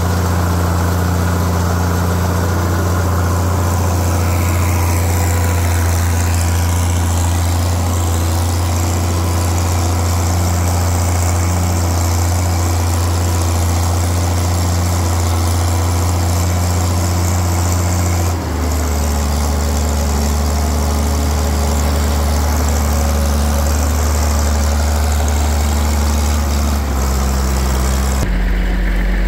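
Case tractor engine pulling a four-bottom plow under load, a steady deep drone. About two-thirds of the way through the engine note drops lower, and it shifts again near the end.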